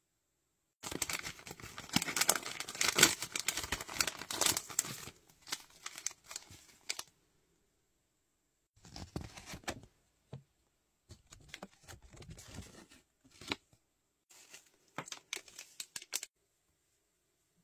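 Toy packaging wrapper torn open and crinkled by hand: a long, loud bout of crackling and tearing, a pause of about two seconds, then several shorter bouts of rustling.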